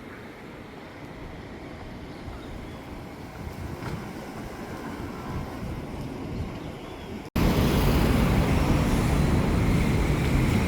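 Outdoor street ambience with traffic noise, steady and fairly quiet at first; about seven seconds in it cuts abruptly to much louder low, rumbling noise.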